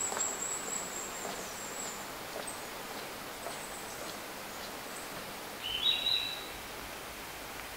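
Forest ambience: a steady background hiss with thin, high bird calls. The loudest is a short two-part call about six seconds in.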